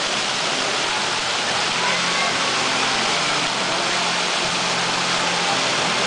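Plaza fountain jets spraying and splashing into the pool, a steady rush of water, with people talking faintly underneath.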